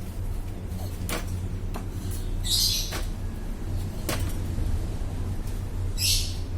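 A bird gives two short, harsh squawks about three and a half seconds apart, with a few sharp clicks and knocks between them over a steady low rumble.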